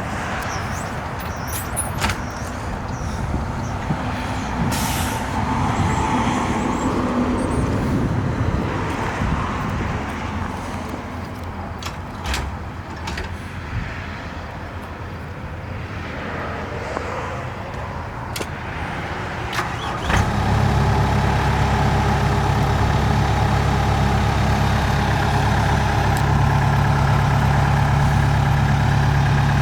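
Takeuchi TL230 tracked skid steer's diesel engine coming on suddenly about two-thirds of the way in and then running steadily at idle. Before that, an uneven background rumble with scattered clicks and knocks.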